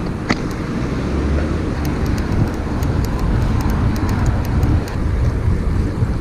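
Wind rumbling over the microphone of a bike-mounted camera as a road bicycle rides along, with a single sharp click just after the start.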